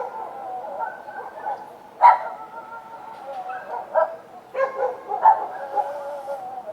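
Dogs barking, with a loud bark about two seconds in and several more later, and drawn-out wavering cries between the barks.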